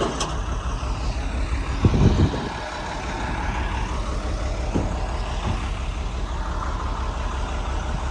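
A vehicle engine running with a steady low rumble, and a heavy thud about two seconds in.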